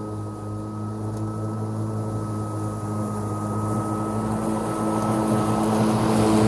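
Walk-behind lawn mower running steadily, a low hum with a thin high whine, growing gradually louder toward the end.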